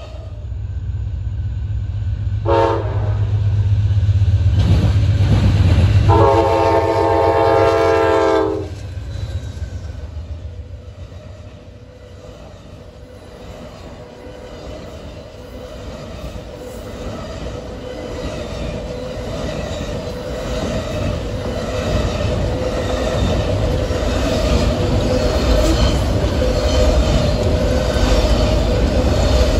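Diesel train's air horn, a short blast and then a longer one a few seconds later, over a deep engine rumble. The train then rolls by with a steady whine and wheel clatter that grows louder toward the end.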